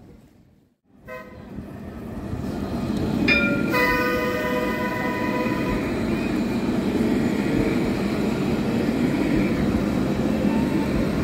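Light-rail tram's horn: a brief toot about a second in, then a held multi-tone note of about two and a half seconds starting a few seconds in. A steady wash of rain and the tram rolling follows.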